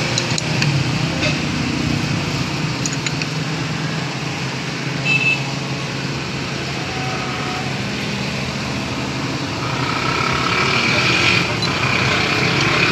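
Steady motor-vehicle engine and traffic noise, with a few light metal clicks from hand tools being used on the steering box.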